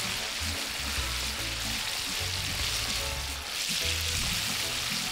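Flour-coated chicken pieces deep-frying in hot vegetable oil, a steady sizzle that grows louder about three and a half seconds in. Background music with low bass notes plays underneath.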